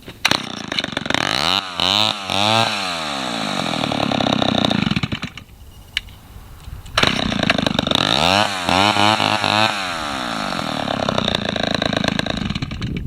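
Vintage two-stroke chainsaw running and being revved: the engine catches at the start and is blipped up twice with a rising pitch. It falls away for about a second midway, then runs again, is revved twice more and keeps running.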